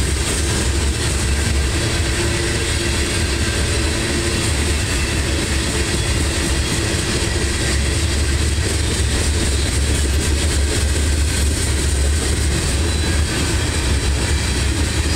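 Loaded covered hopper cars of a freight train rolling past: a steady low rumble of steel wheels on rail.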